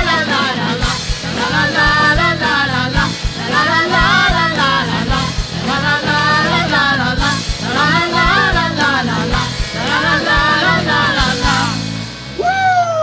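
Band music: a wavering sung melody in phrases about two seconds long, over a steady bass and regular drum beats. Near the end the music stops and a drawn-out, falling, howl-like cry sounds.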